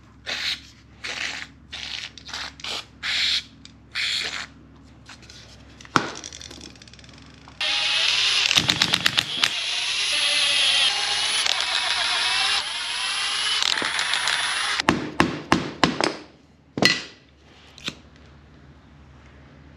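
A run of about nine short squirts from an aerosol spray can, then a Milwaukee Fuel cordless impact wrench running for about seven seconds, hammering at first, as it undoes the bolts on a steering box's cover. A few sharp metal clicks follow as the loosened bolts and the cover are handled.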